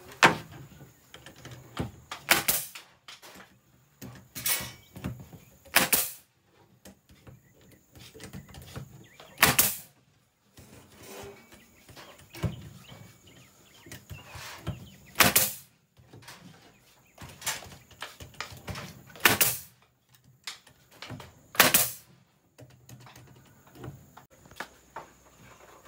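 Pneumatic nail gun firing into plywood: about nine sharp shots at irregular intervals of one to four seconds, with quieter knocks of handling between them.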